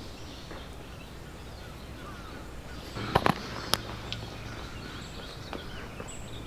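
Outdoor ambience: a steady background hush with faint bird chirps, and a quick cluster of three sharp clicks a little after halfway through.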